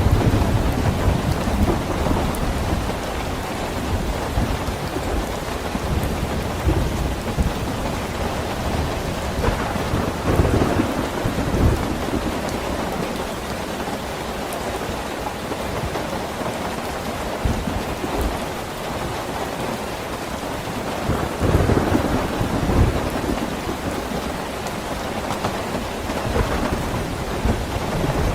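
Steady rain with low thunder rumbles that swell at the start, about ten seconds in, and again a little past twenty seconds.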